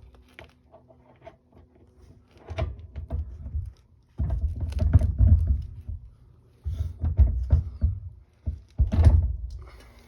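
Clunks and knocks of metal parts being handled, in four bursts with quiet stretches between: a garden tractor's front wheel and its bearings being slid and shoved onto the spindle.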